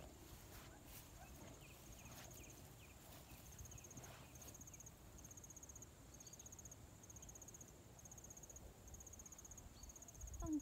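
Faint, high-pitched chirping of an insect, cricket-like: a short buzzy chirp repeated about once a second.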